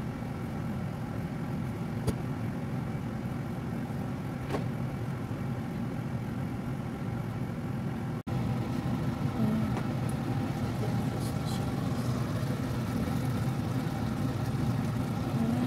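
Steady hum of a kitchen appliance, made of several even tones, with a few light clicks. It breaks off suddenly about eight seconds in and comes back a little louder.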